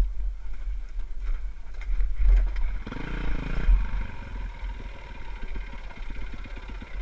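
Dirt bike engine running at low speed over rocky ground, with wind rumble on a helmet camera; the engine note swells briefly about three seconds in.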